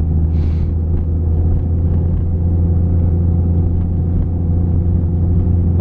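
Jeep engine and drivetrain running steadily while driving, a constant low drone heard from inside the cab. A brief hiss sounds about half a second in.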